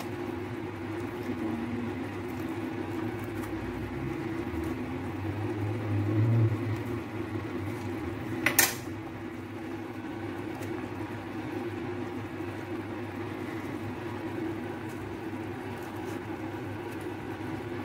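Soup simmering in a stainless steel pot on the stove, with a steady low hum underneath. One sharp clink of metal sounds about halfway through.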